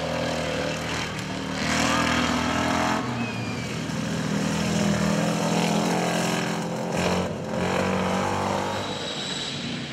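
Land Rover Defender off-road racers' engines running under load as they drive through mud, the engine note shifting in pitch a few times.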